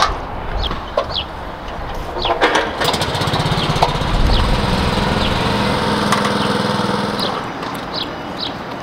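Walk-behind trencher's small gas engine running steadily as the machine is brought down a ramp off a trailer. The engine comes in about three seconds in and eases off near the end, after a few metal knocks at the start.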